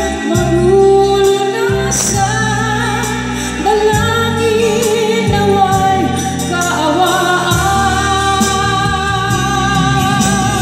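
A small vocal group singing in harmony into microphones, amplified through a PA, over a live band with bass and drums. The voices hold long notes that change pitch every second or two.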